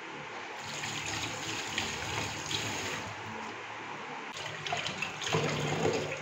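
Water running into a stainless-steel kitchen sink while cut fish pieces are rinsed by hand in a steel colander. The splashing gets louder about five seconds in as the hands work the fish under the stream.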